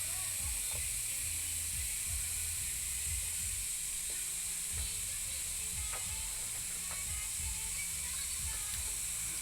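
Excavator's diesel engine running steadily with a low rumble, under a constant high hiss.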